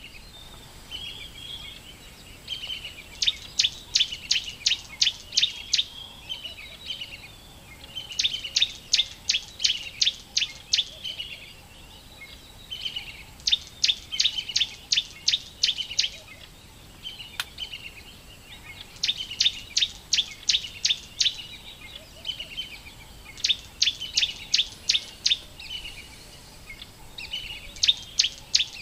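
A bird singing in repeated phrases about every five seconds: each a soft warble that runs into a quick series of about ten sharp, high notes.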